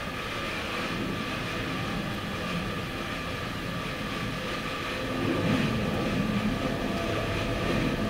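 A steady mechanical rumble with a faint constant hum, swelling slightly about five seconds in.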